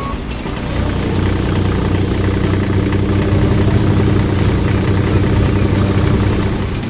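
Engine of a heavy construction vehicle running steadily, a low rumble that comes in about half a second in and eases slightly near the end.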